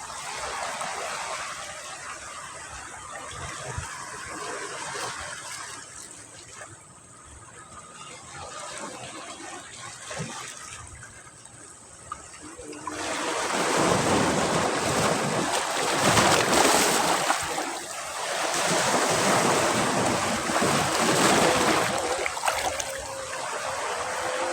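Sea waves washing on a beach: a quieter trickling wash of water at first, then a louder breaking surf from about halfway through that swells twice before easing.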